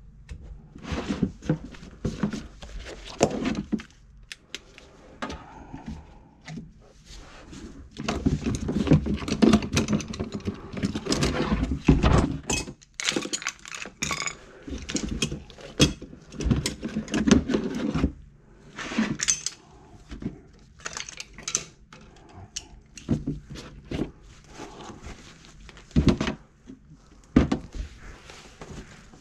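Irregular handling noise: knocks, scrapes and rustling as cloths and a plastic tub are moved around in the cabinet under a kitchen sink. It is busiest and loudest in a stretch near the middle.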